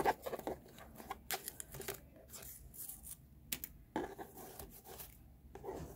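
Louis Vuitton cardboard gift box and its ribbon being handled, with scattered rustles, scrapes and light taps.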